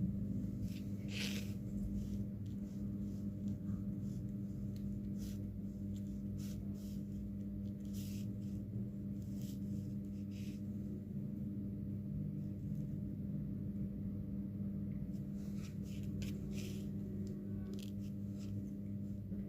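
Scattered short clicks and light scrapes of small tools working on a smartphone, over a steady low hum.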